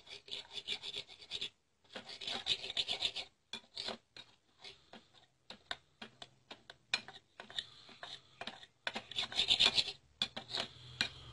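A spoon stirring and scraping turmeric powder and milk together in a small bowl: quick rubbing strokes in several short bouts.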